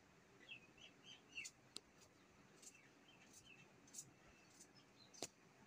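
Faint small clicks of a knife cutting onions against a plate, with a sharper tap about five seconds in. Faint bird chirps in the background during the first second and a half.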